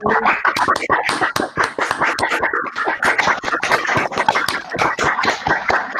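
Applause from several people clapping over a video call: a dense, irregular patter of hand claps.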